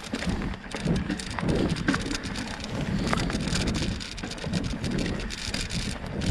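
Bike tyres rolling along a leaf-strewn dirt trail: a steady crackle and patter of small clicks from leaves and twigs under the wheels.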